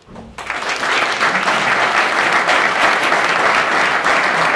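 Audience applauding, starting about half a second in and quickly swelling to steady, sustained clapping.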